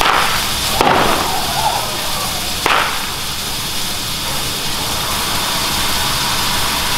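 Steam locomotive CN 2141 running with a steady hiss of venting steam, broken by two sharp cracks about two seconds apart, the first about a second in.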